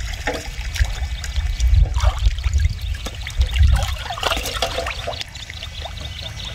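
Shallow water sloshing and trickling, with many small irregular splashes and clicks over a low rumble.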